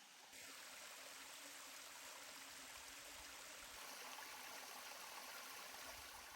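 Faint, steady rush of a small woodland waterfall, not a roaring one. It starts abruptly about a third of a second in.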